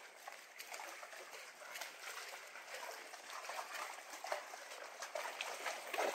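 Lagoon water lapping and trickling around the pilings under a wooden boardwalk, a steady irregular splashing with a louder slosh near the end.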